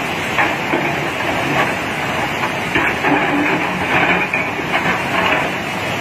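Fast-flowing river in flood rushing through whitewater: a loud, steady rush of churning water.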